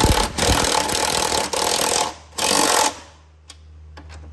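Impact gun with a 15 mm socket running down the new strut mounting nuts: one burst of about two seconds, then a short burst of about half a second.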